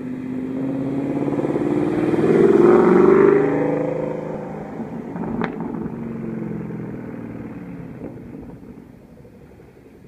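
2014 Ford Mustang GT's 5.0-litre V8 through a Borla ATAK catback exhaust, accelerating hard: the exhaust note rises in pitch to its loudest about three seconds in, then fades as the car pulls away. A single sharp crack sounds about five seconds in.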